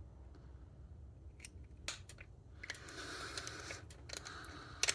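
Hand tools being handled: a few light clicks, then rustling from just under three seconds in, and a sharp click near the end.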